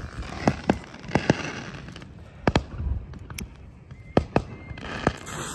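Fireworks going off: a string of sharp cracks and bangs at irregular intervals, several a few tenths of a second apart, over a low rumble.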